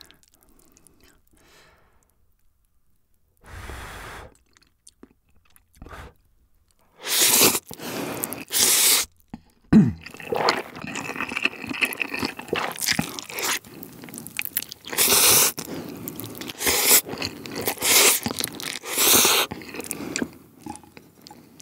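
Close-miked eating of Buldak fire noodles: several long, loud slurps begin about a third of the way in, followed by wet chewing broken by more slurps. The opening seconds are mostly quiet apart from one short soft noise.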